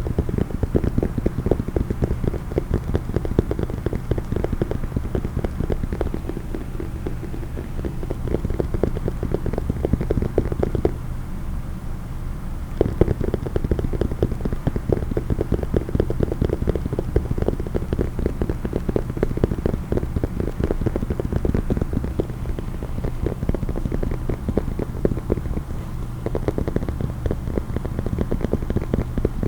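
Rapid, continuous tapping on a case, many small taps a second. The tapping thins out about eleven seconds in and picks up again about two seconds later.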